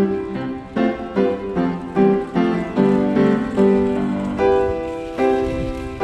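Background music: a piano playing a melody, notes struck about twice a second and each fading away.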